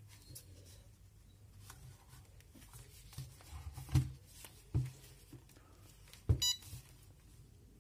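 A few soft knocks as a small foam RC VTOL plane is set down on a table and its remote is picked up, the loudest about four seconds in, then a short electronic beep near the end.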